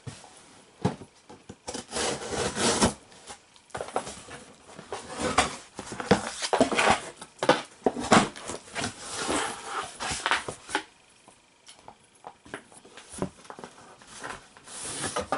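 Cardboard shipping box being opened and unpacked by hand: flaps and inner boxes rubbing and scraping against each other, with scattered knocks and rustles, quieter for a couple of seconds past the middle.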